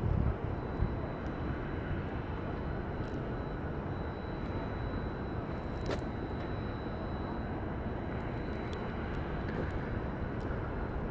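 Steady low rumble of city traffic noise with a faint, steady high-pitched tone over it, and a single sharp click about six seconds in.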